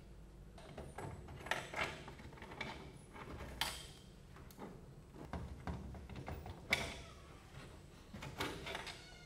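Handling noises of gloved hands pulling wiring out of a plastic electrical disconnect box: scattered light clicks, scrapes and rustles, with a few sharper knocks.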